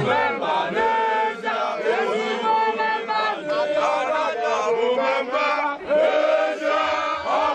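A crowd of many voices chanting and singing together, loud and continuous.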